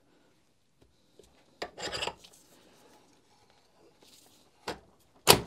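Steel bit shank rubbing and scraping in the SDS-max chuck of a Makita HR5001C rotary hammer as it is worked by hand, testing the freshly reassembled tool holder. A short scrape comes about a second and a half in, then small clicks and a sharp metallic knock just before the end.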